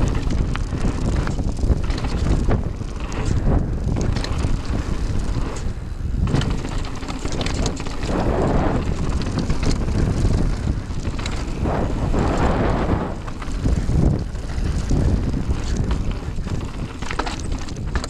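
Mountain bike descending a dirt and gravel trail: wind buffeting the microphone over tyre rumble on the loose surface, with many small clicks and rattles from the bike over bumps.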